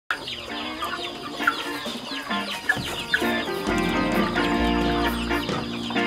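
Chickens clucking and chirping, with background music joining about halfway through and bringing in a deep bass.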